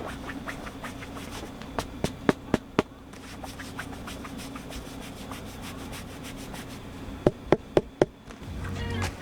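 A steady low buzzing hum with sharp clicks or taps over it: four in quick succession about two seconds in, and four more about seven seconds in.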